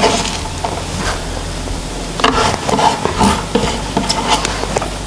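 Chopped mint and coriander leaves being dropped and pressed by hand into a steel mixer-grinder jar: irregular rustling and light scraping against the metal.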